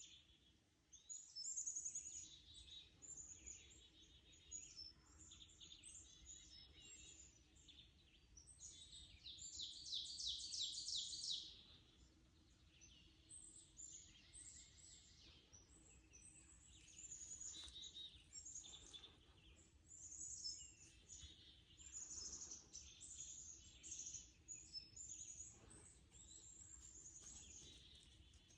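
Songbirds singing and chirping, several high-pitched calls overlapping, with a louder run of rapid repeated trilled notes at about nine to eleven seconds in.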